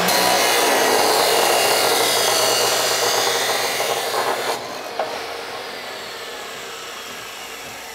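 DeWalt abrasive chop saw cutting through steel: a loud, steady grinding that lasts about four and a half seconds. Then the blade is lifted, a click follows, and the blade winds down with a falling whine.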